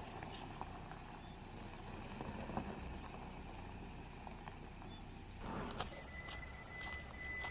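Steady low rumble of a car in motion, heard from inside. About six seconds in, a thin steady high tone starts and holds.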